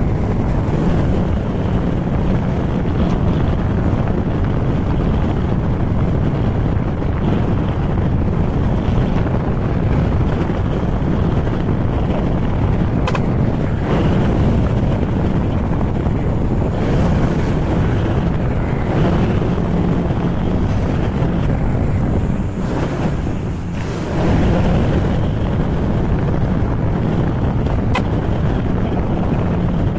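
Heavy wind rush on the microphone from riding at speed on a Honda ADV160 scooter, with the scooter's engine running steadily underneath. The rush drops briefly a little over twenty seconds in, then comes back.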